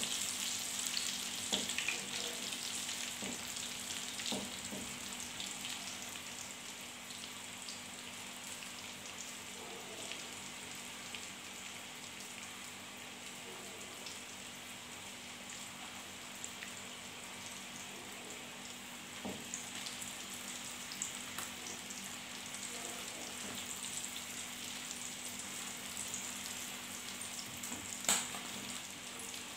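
Chicken nuggets deep-frying in hot oil in a pan: a steady sizzle with crackles, loudest at first and settling after a few seconds. A silicone spatula taps and scrapes the pan as the nuggets are turned near the start and again near the end.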